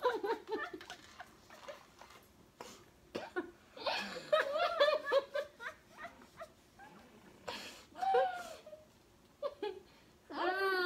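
Two girls laughing hard in bursts through mouthfuls of marshmallows, giggling and breaking up, with short quiet gaps between fits.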